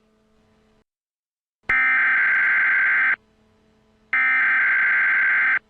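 Emergency Alert System SAME header: two loud bursts of digital data tones, each about a second and a half long and a second apart, the coded signal that opens an Emergency Action Notification.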